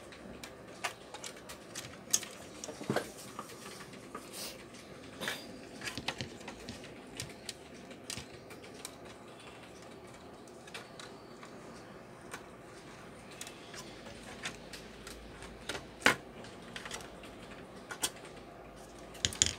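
Irregular clicks and light knocks from hands handling wires and plastic parts inside an opened wireless speaker's casing, with the sharpest knock about three-quarters of the way through.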